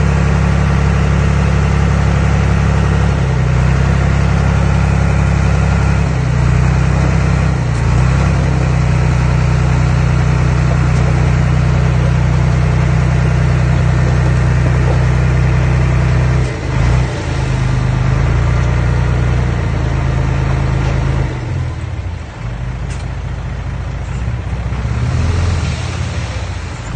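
Earthmoving machine's engine running loud and steady, its pitch shifting several times as the load changes, then easing lower in the last few seconds.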